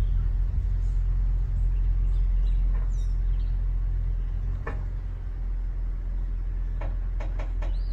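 2018 Toyota Tundra pickup running with a steady low rumble, with one sharp knock just past halfway and a quick run of knocks near the end.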